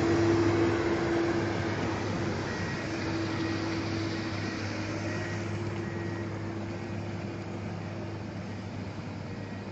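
Excavator's diesel engine running steadily with a constant hum, slowly growing quieter.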